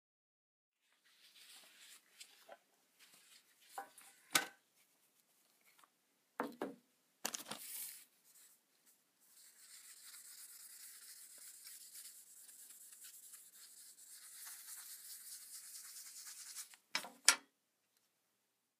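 Rag rubbing paste wax onto a steel carpenter's square: a faint, steady scrubbing for several seconds, after scattered handling clicks and knocks, with two sharp knocks near the end.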